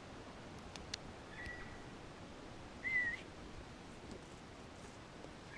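Two short whistled notes, the first held steady, the second louder and wavering in pitch, with two sharp clicks just before the first.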